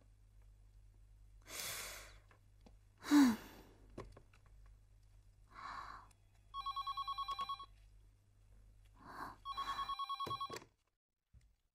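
A woman sighs heavily twice. Then a desk telephone rings twice with a fast electronic trill, each ring about a second long and about three seconds apart.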